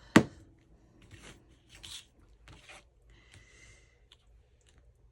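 A sharp knock just after the start, then a few faint, short rustles and scrapes of paper being handled.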